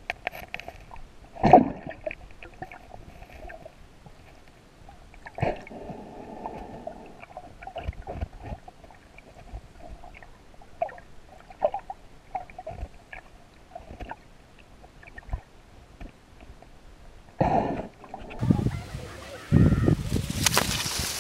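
Muffled underwater sound of a hand digging through sand and stones on the sea bottom: scattered clicks and knocks of rocks, with two louder gushes about a second and a half and five seconds in. Near the end the sound changes to open air, with loud handling thumps and a hiss.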